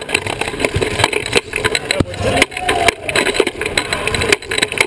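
Sports wheelchair rolling fast across a hardwood court, heard through a camera mounted on its frame: a dense rattling clatter with many knocks. It starts suddenly as the chair sets off.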